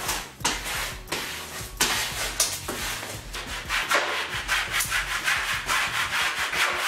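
Plastic squeegee being rubbed in repeated short strokes over the application tape of a vinyl wall decal, pressing the vinyl onto the wall.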